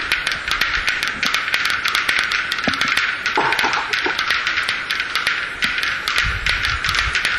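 Black-billed capercaillie display song: a rapid, uneven run of clicks, about eight to ten a second, over a steady hiss.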